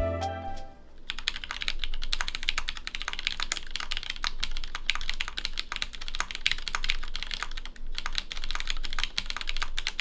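Fast typing on a Rukia custom mechanical keyboard: a dense, steady run of key clacks that starts about a second in, broken by a couple of brief pauses.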